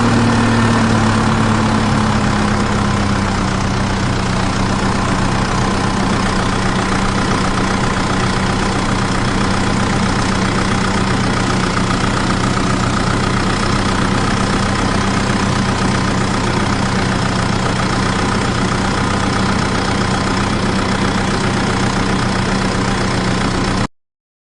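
An engine idling steadily, its pitch easing slightly lower over the first few seconds and then holding even. It cuts off abruptly near the end.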